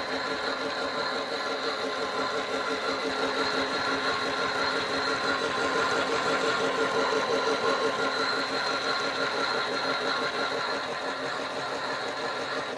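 Play at Home toy washing machine's small electric motor running steadily, spinning the drum with a constant whirring hum.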